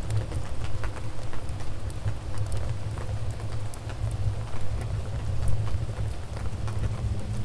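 Wood fire in a fireplace crackling, with scattered sharp pops over a steady low rumble of the flames. A faint low hum joins near the end.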